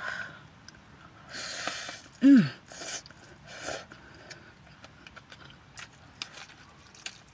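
Noodles being slurped off a fork in a few quick sucking bursts, with a short vocal grunt falling in pitch about two seconds in. Chewing follows, with light clicks of a metal fork against a plastic cup.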